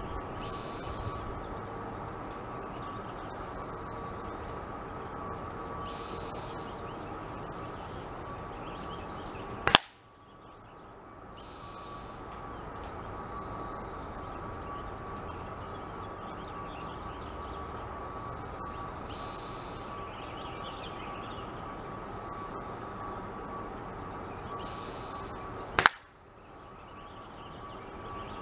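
Two sharp single cracks of .177 air rifle shots, about 16 seconds apart. The first is a hit that knocks the apple target aside. Between the shots there is a steady faint outdoor background with a light hum and short high chirps now and then.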